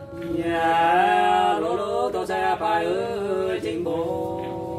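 Unaccompanied hát sli folk singing: a long, drawn-out vocal line of held notes that glide slowly up and down, with a brief break about three and a half seconds in.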